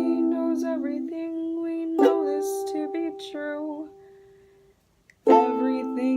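Ukulele strummed by a learner: one chord rings, a new chord is struck about two seconds in and fades almost to silence, then another strummed chord comes in about five seconds in.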